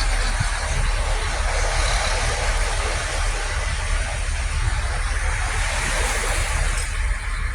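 Steady roadside noise: the rumble and hiss of passing traffic, with wind buffeting the microphone.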